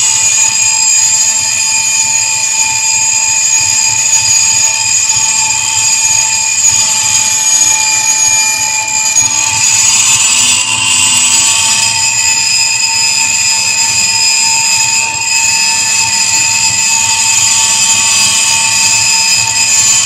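Live noise music from electronics: several loud, steady high-pitched tones sounding at once and held without a break, the upper tones wavering slightly about halfway through.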